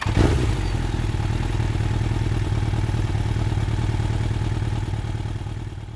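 Motorcycle engine idling steadily, fading out near the end.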